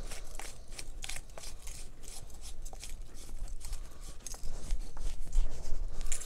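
Hands rummaging through and handling small objects: scattered clicks and rustles, getting louder with a few low bumps about two-thirds of the way in.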